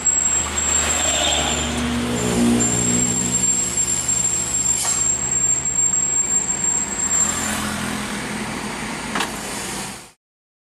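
Truck engine running with road noise, heard from inside a truck cab on a downhill run. A thin high whine runs over it, with sharp knocks about five and nine seconds in. The sound cuts off abruptly near the end.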